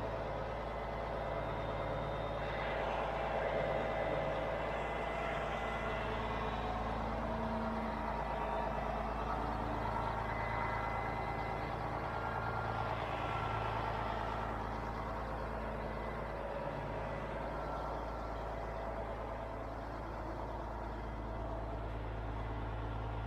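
Heavy diesel engine of a mobile crane running steadily, with its sound swelling and easing now and then.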